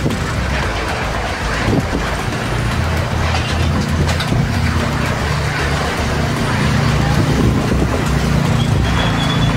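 Storm wind gusting hard and buffeting the microphone, a dense steady rush with a low rumble underneath.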